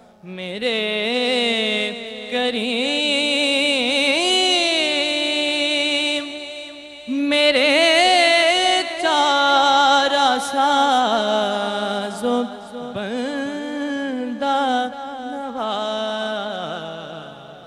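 A male voice singing a naat without instruments, in long held notes with wavering ornaments, with a short break between phrases about seven seconds in and a fade near the end.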